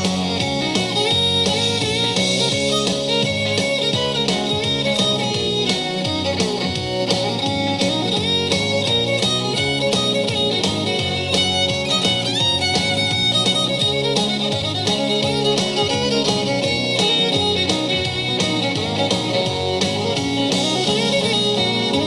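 Instrumental break in a country song: a fiddle plays the lead over strummed guitar and the band.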